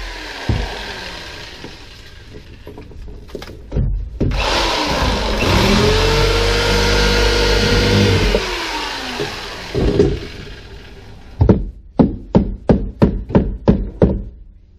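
A corded power tool spins up, runs for about three seconds and winds down while cutting out fiberglass and foam under a boat's dash. Near the end, a hammer lands about ten quick blows, roughly four a second.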